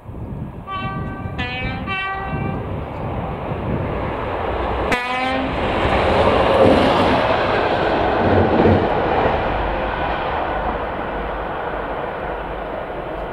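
Class 37 diesel locomotive sounding three short horn blasts in quick succession, then a fourth, sharper blast about five seconds in. The engine noise swells loudly as it runs through and fades near the end.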